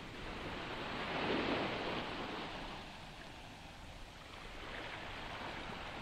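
Sea surf washing on a rocky shore: one wave swells about a second in and dies away, and a smaller one comes near the end.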